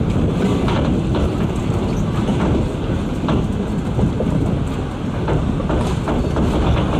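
Rumble of a train rolling along a branch line, heard from a coach behind diesel switch engines, with irregular clacks of the wheels over rail joints.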